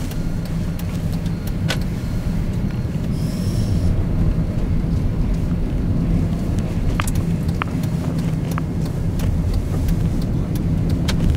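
Steady low road and engine rumble heard inside a Dodge car's cabin while driving on a snow-covered road, with scattered light ticks.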